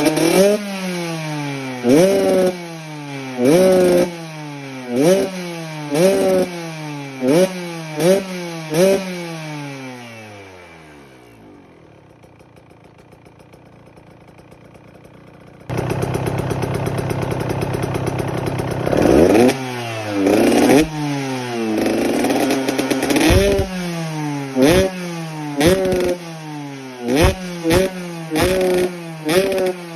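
KTM 125 two-stroke single with a Pro Circuit exhaust being blipped over and over, each rev shooting up and falling back, about one a second. Around eleven seconds in it drops to a quiet low run. It comes back loud and steady near sixteen seconds, then more sharp revs follow.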